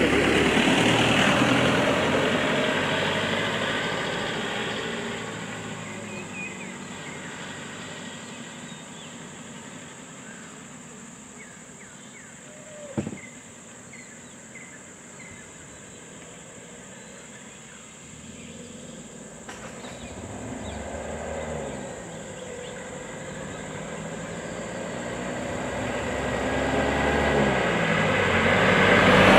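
Vans driving past on the road: one fading away early, then another approaching and passing close near the end, the engine and tyre noise growing loud. A single short sharp sound about halfway through.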